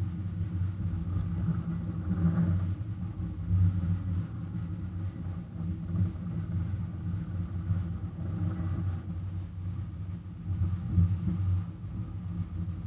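Miniature ride-on railway locomotive running under way with its train of passenger cars: a low, steady engine sound that swells now and then.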